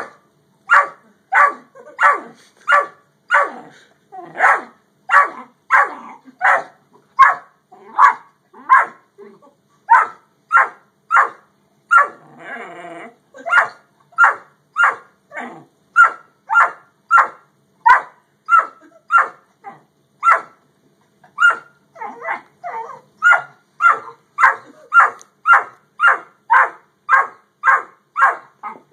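Great Dane puppy barking over and over at a yellow Labrador, about two short barks a second, broken once about twelve seconds in by a longer, rougher sound.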